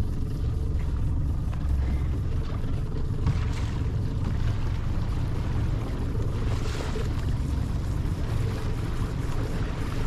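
Steady low rumble of wind buffeting the microphone aboard a boat at sea.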